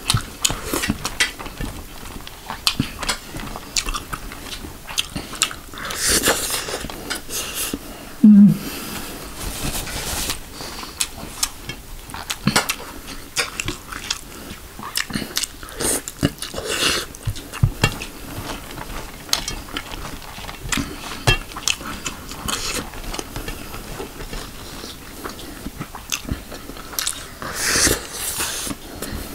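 Close-miked eating: wet chewing and lip smacking on chicken in gravy and rice, with fingers scraping and picking food off a steel plate, in irregular clicks and smacks.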